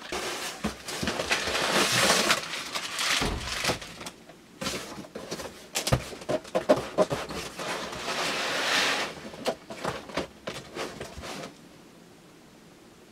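Packaging rustling and items being handled, with scattered clicks and knocks: two longer stretches of rustling, one at the start and one about eight seconds in.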